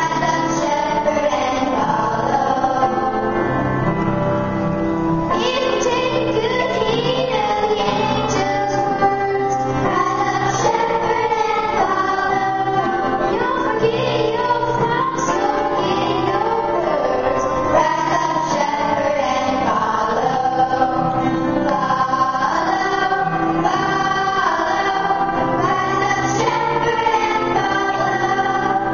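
Children singing a Christmas song, a solo voice at a microphone with a children's choir, continuously and without a break.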